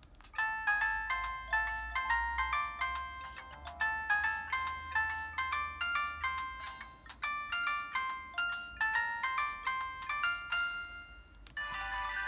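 Samsung Anycall SCH-W200 mobile phone playing one of its built-in ringtones, a quick melody of short, separate notes. About a second before the end it breaks off and a different, denser ringtone begins.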